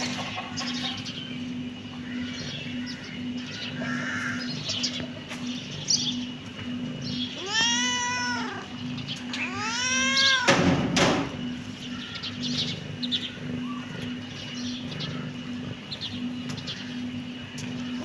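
Kitten meowing twice, about eight and ten seconds in: two drawn-out meows, each rising then falling in pitch. A short thump follows just after the second, over a steady low hum.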